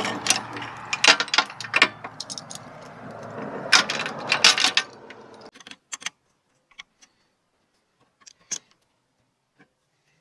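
Steel hitch safety chain rattling and clinking as it is handled and hooked, with sharp metal clanks for about five seconds, then only a few faint ticks.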